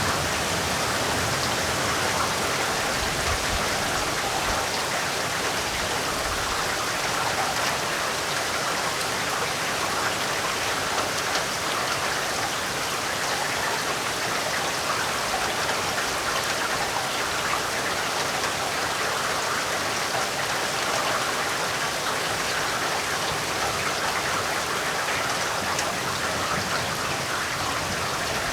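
Heavy rain falling steadily, an even wash of dense drops. A low rumble underneath dies away in the first few seconds.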